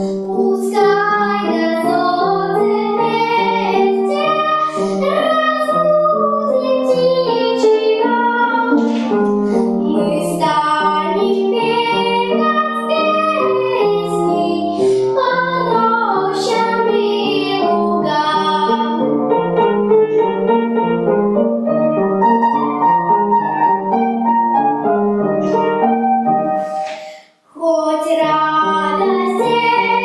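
A young girl singing a song with upright piano accompaniment. The music breaks off briefly about three seconds before the end, then singing and piano resume.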